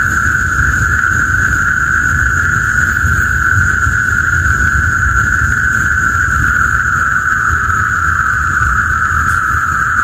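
A dense frog chorus merging into one continuous, steady drone at a single pitch, with a thin, steady high hiss above it and a low rumble underneath.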